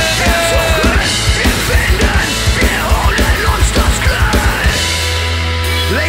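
Live band playing loud, fast punk-rock: a rapid drum-kit beat over heavy bass. About three-quarters through, the drum strokes give way to a held low bass note.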